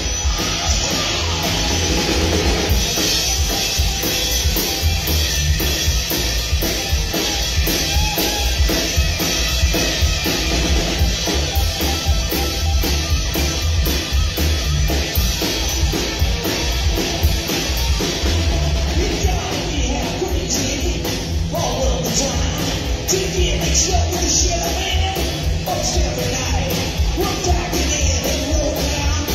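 Live rock and roll band playing: upright bass, a drum kit keeping a steady beat, and electric guitar.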